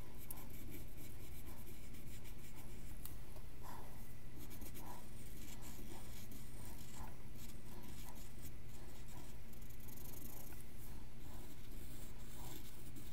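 Graphite pencil scratching across paper in short, irregular strokes as lines are drawn in, over a steady low hum.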